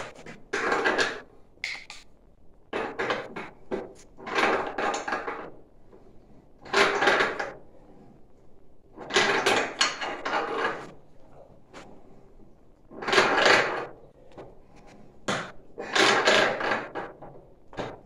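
A wrench turning threaded stainless steel pipe fittings tight: grinding, scraping strokes of metal on metal, about eight of them, each half a second to a second long, with short pauses between.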